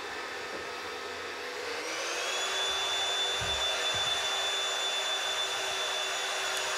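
Vacuum cleaner running, its motor whine rising in pitch about two seconds in, then holding higher and louder as it is switched to turbo mode.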